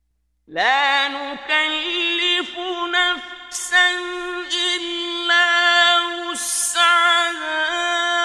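A man's voice reciting the Quran in slow, melodic tajweed, drawn-out wavering notes that slide from pitch to pitch. It begins about half a second in, after silence.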